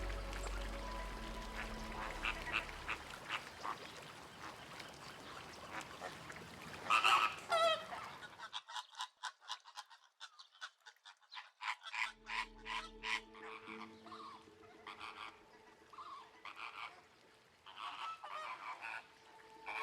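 A flock of greater flamingos honking and gabbling, with many short overlapping calls and a louder call about seven seconds in.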